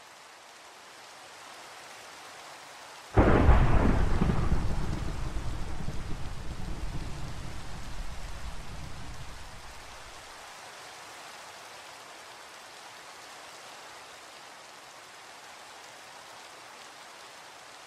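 Steady rain with a sudden thunderclap about three seconds in that rolls on as a deep, pulsing rumble and dies away after about seven seconds, leaving the rain.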